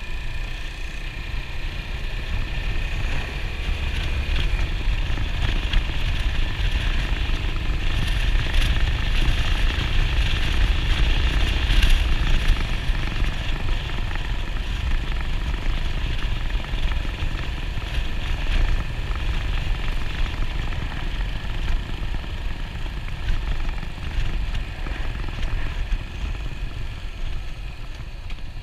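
Yamaha SR400's single-cylinder engine running under way, with heavy wind buffeting on the microphone, swelling a little in the first half and easing later.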